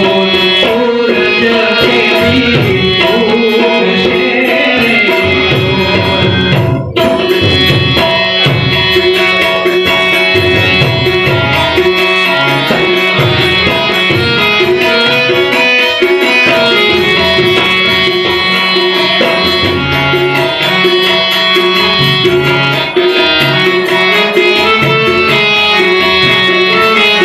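Harmonium and tabla playing a folk-song accompaniment: the harmonium holds a sustained melody while the tabla keeps a steady rhythm. A man's singing voice is on top for the first few seconds, then the instruments carry on as an interlude without the voice.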